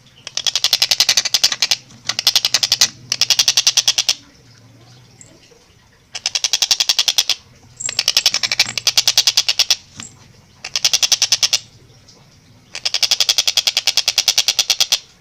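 Tengkek buto kingfisher giving its fast chattering 'ngekek' call: seven loud bursts of rapid, evenly spaced kek notes, each burst lasting one to two seconds with short pauses between, over a faint steady low hum.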